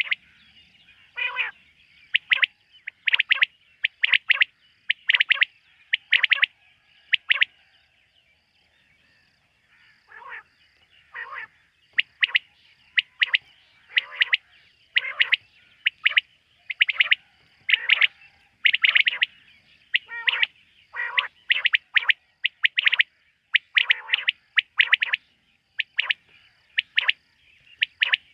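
Quail calling at night: short, sharp calls repeated about once a second, sometimes in quick pairs, with a pause of a couple of seconds near the middle.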